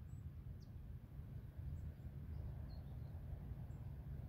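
Wind buffeting the microphone as a faint, uneven low rumble, with a few faint bird chirps.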